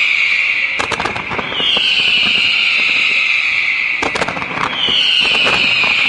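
Fireworks display: a loud high whistle that drops slightly in pitch and holds for about three seconds, starting again about every three seconds, over scattered crackles and pops.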